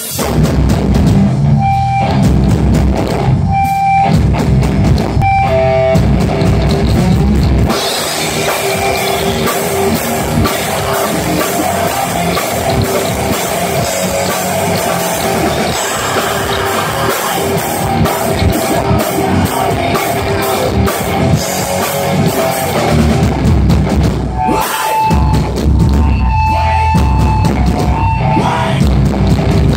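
Live rock band playing loud distorted electric guitars and a drum kit. A heavy stop-start riff with short breaks opens, then a busier passage full of cymbals follows, and the heavy riff returns near the end.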